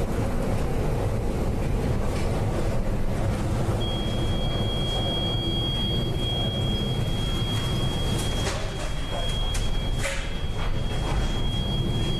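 Typhoon wind and heavy seas battering a ship: a loud, steady rumbling rush. A high steady tone comes in about four seconds in, and a few sharp knocks sound near the end.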